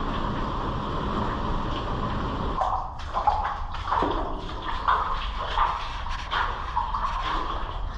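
Rushing water from a river in a gorge, a steady rush. About two and a half seconds in it cuts to footsteps splashing through shallow water on the floor of a rock mining tunnel, irregular and echoing, roughly two steps a second.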